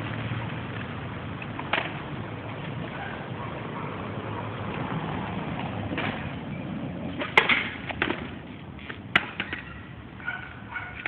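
Skateboard wheels rolling over street pavement with a low rumble, with several sharp clacks as the board hits cracks or bumps, the loudest about seven and a half seconds in.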